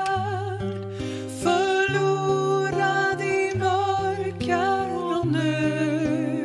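Two women singing a Swedish worship song together, holding long notes with vibrato, over a strummed acoustic guitar.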